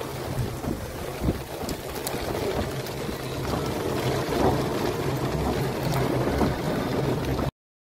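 Strong wind rushing over a phone microphone with a steady low rumble, slowly growing louder, then cutting off suddenly near the end.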